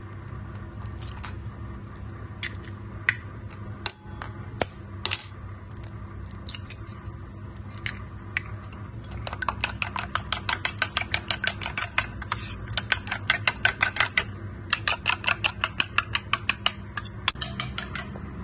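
A few scattered sharp taps as eggs are cracked into a small steel bowl, then a metal spoon beating the eggs against the bowl's sides: rapid clinking, about six strokes a second, starting about halfway through with one short break.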